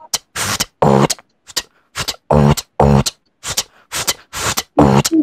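A man beatboxing: a steady, quick rhythm of short vocal drum sounds. Crisp hissing snare hits alternate with low hummed bass notes.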